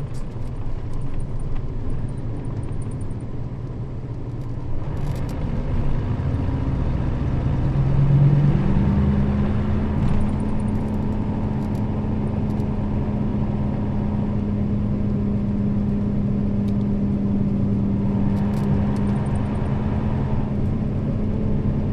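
Nissan Diesel KL-RA552RBN route bus heard from inside the cabin as it drives. Its engine rises in pitch and loudness over the first eight seconds or so, then settles into a steady drone.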